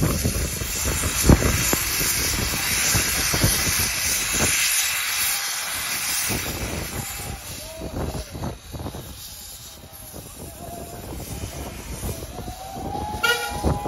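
Narrow-gauge steam locomotive starting away with its cylinder drain cocks open: a loud hiss of escaping steam that fades after about six seconds, over slow, uneven exhaust chuffs. A thin squeal, likely wheel flanges on the station pointwork, comes in near the end.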